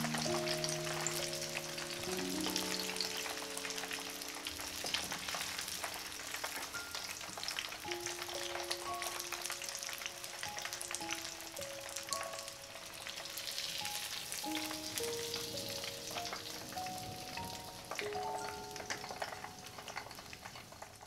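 Breaded pork meatball cutlets deep-frying in hot oil in a frying pan, the oil crackling and sizzling steadily around them. Soft background music of single sustained notes plays underneath.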